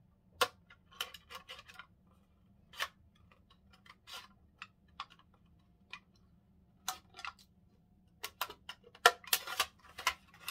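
Scissors snipping through a thin clear plastic candy-kit tray: a series of separate crisp snips with short pauses between them, coming thicker and faster near the end.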